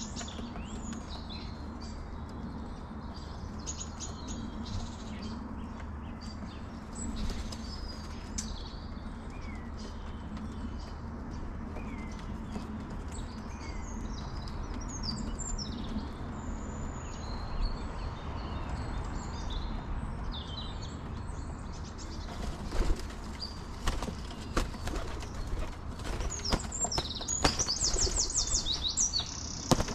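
Small garden birds chirping in short, high calls, with wing flutters as they come and go at a bird table. In the second half come several sharp taps and a quick rapid trill near the end.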